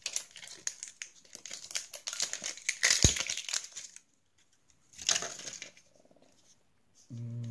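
Plastic wrapping of a LOL Surprise Pets ball crinkling as it is pulled and peeled by hand, with a sharp tap about three seconds in. The crinkling stops about four seconds in and comes back once briefly.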